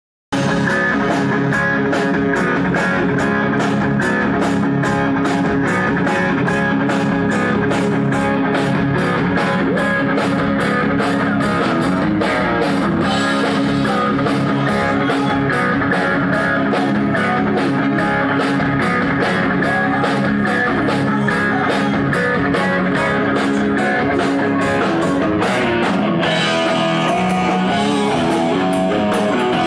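Rock band playing live with no singing: electric guitar over a drum kit keeping a steady beat. Near the end the regular cymbal-like strokes drop out and the arrangement changes.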